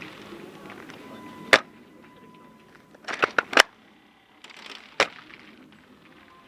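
Airsoft guns firing in sharp, short shots: one shot, then a quick string of several about two seconds later, then one more single shot.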